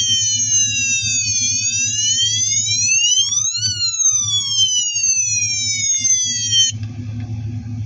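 Electronic siren of a toy model police motorcycle sounding a slow wail, its pitch sliding down, then up, then down again over a steady low hum. The siren cuts off suddenly near the end and a rougher, hissing noise takes over.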